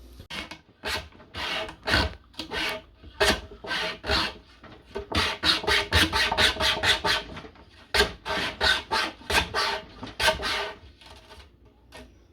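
Cheap mini pocket chainsaw's chain rasping back and forth through a piece of wood in uneven strokes, about two a second, with short pauses. The chain binds and sticks once the cut goes a little deep.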